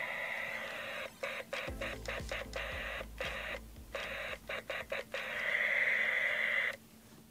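Static hiss from a 2001 Gundam Wing toy walkie-talkie's small speaker, cutting out briefly several times and then stopping near the end.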